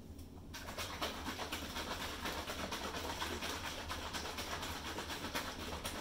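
Hairdryer switched on about half a second in, blowing a steady rush of air over wet poured acrylic paint, then cutting off right at the end.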